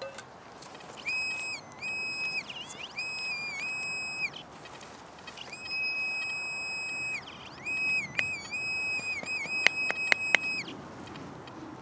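Handheld metal-detecting pinpointer probe sounding a high electronic alert tone in repeated stretches of a second or two, each with a slight bend in pitch where it starts and stops, as it is worked through a dig hole over a buried metal target, a large piece of iron. Near the end come a few sharp clicks, the loudest sounds.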